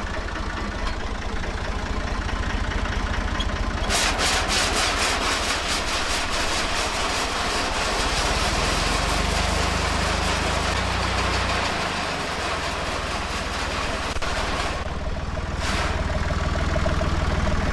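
Tractor engine running at idle. About four seconds in, a fast mechanical rattle of machinery starts up and runs until about fifteen seconds, and from about eight seconds the engine note is heavier, as if working under load.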